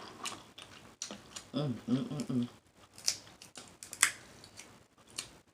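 Close-miked eating sounds: wet mouth smacking and sharp clicks from chewing seafood, with a short hummed voice sound about one and a half seconds in.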